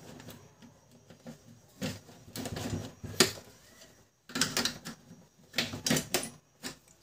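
Plastic clicks and taps from handling a laser-printer toner cartridge, with a screwdriver at its developing-gear end: a string of short, sharp clicks spread unevenly through.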